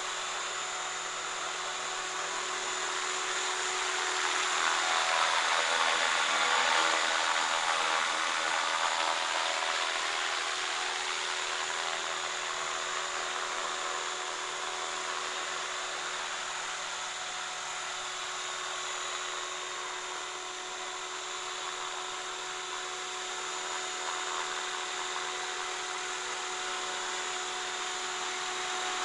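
Align T-Rex 550E electric RC helicopter in flight: the high whine of its brushless motor and gears over the whirr of the rotor blades. It swells louder and shifts in pitch for a few seconds, from about four seconds in, then holds steady.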